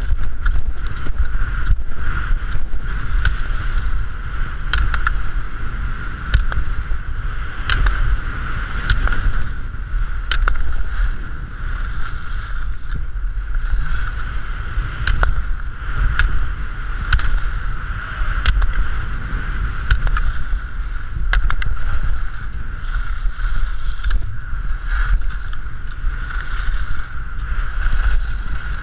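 Wind rushing over a helmet-mounted GoPro's microphone and skis scraping on hard-packed snow during a slalom run. Sharp clacks come about every second or so as the skier turns through the gates.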